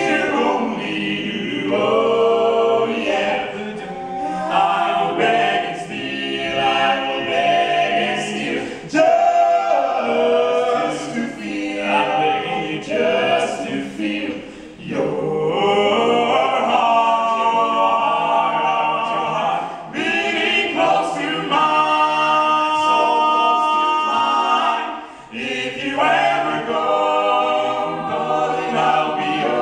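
Barbershop quartet of four young male voices singing a cappella in close four-part harmony, in sustained phrases with brief breaks between them.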